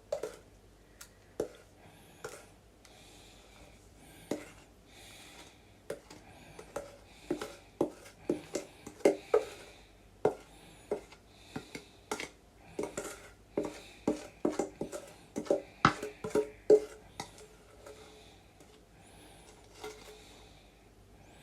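A utensil scraping and knocking against a mixing bowl as cake batter is spooned into a small paper-lined baking tin: irregular taps and scrapes, thickest through the middle and thinning out near the end.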